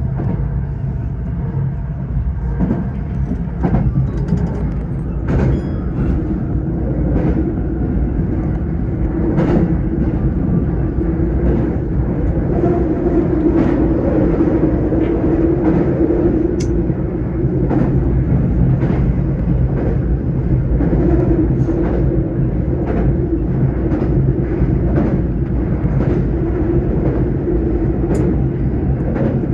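Tokyo Metro 05 series electric train running at speed, heard from inside the car: a steady rolling rumble and hum, with repeated clacks from wheels crossing rail joints.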